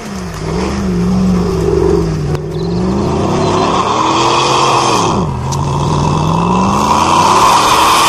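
Hummer H2's V8 engine revving under load as the SUV ploughs through deep snow, its note rising and falling with the throttle, dropping sharply about five seconds in and then climbing again, over a steady hiss.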